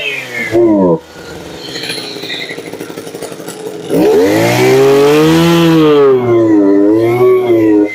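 Green 31cc two-stroke brush cutter engine being revved on the throttle. It falls back to idle about a second in and idles for about three seconds, then is revved up again near four seconds, the pitch swinging up and down as the throttle is blipped, easing off near the end.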